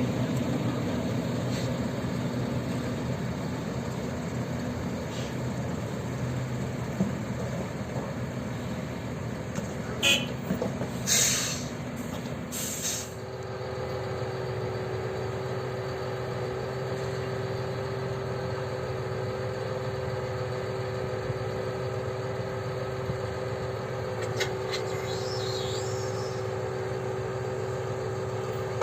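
Heavy farm vehicles' engines running steadily, with a few short bursts of hissing air about ten to thirteen seconds in, after which a steady whine sets in.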